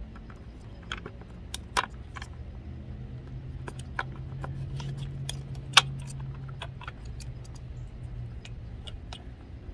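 Scattered sharp clicks and light taps of plastic and metal as fingers work a T-bolt into the foot of a roof-rack crossbar, trying to seat it in its mounting hole. A low hum runs underneath, swelling midway and easing off.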